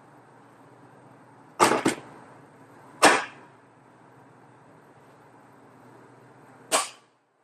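Rivets being set into a door panel with a rivet tool: four sharp snaps, two in quick succession about one and a half seconds in, one about three seconds in and one near the end.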